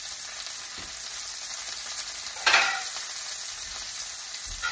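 Steaks frying in oil in a pan on medium heat: a steady sizzling hiss, with a brief louder burst of sizzle about halfway through.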